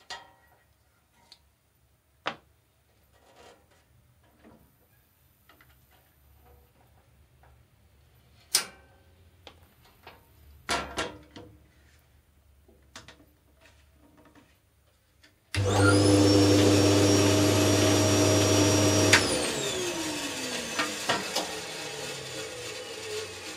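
Band saw motor switched on about two-thirds of the way in, running steadily for about four seconds after its new blade is fitted, then switched off, its whine falling as the wheels coast down. Before it, a few light clicks and knocks.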